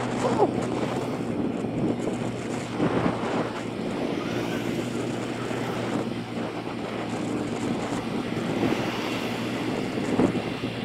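Motorbike engine running steadily while riding, with wind buffeting the bike-mounted camera's microphone.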